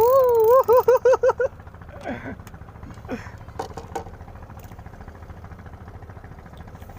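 Small fishing boat's engine running steadily at idle. A loud warbling tone, its pitch wobbling faster and faster, stops about a second and a half in, and a couple of short falling cries follow.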